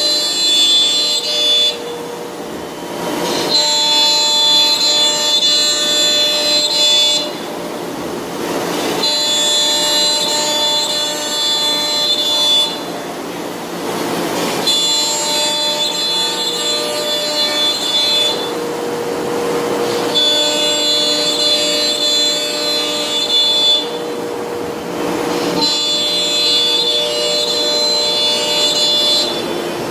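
CNC router spindle whining at a steady high pitch as it cuts pockets into a sheet of board, with the rush of air through its dust-collection hose. About every five to six seconds the whine breaks off for a second or two into a noisier rushing stretch, then resumes, in an even repeating cycle.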